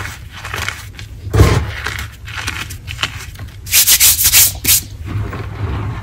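Hands crumbling and rubbing crunchy lumps of gym chalk into powder, with gritty crunching and rubbing throughout. There is a heavier crunch with a thud about a second and a half in, and a quick run of about five loud, sharp, hissy rubs of chalk-covered palms about four seconds in.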